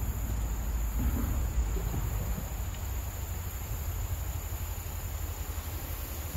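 Wind rumbling on the microphone, with a steady high-pitched whine over it. Faint rustling of fishing gear being handled about a second in.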